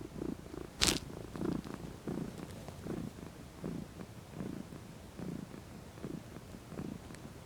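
Domestic cat purring close up, swelling and fading in a steady rhythm a little faster than once a second as it breathes in and out. A sharp click about a second in, and a fainter one near the end.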